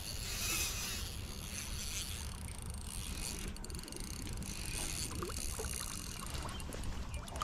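Wind rumbling on the microphone, with light splashing from a hooked trout thrashing at the water's surface.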